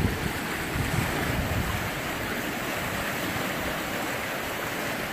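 Creek swollen with overnight rain and close to overflowing, its fast brown current rushing in a steady, even wash.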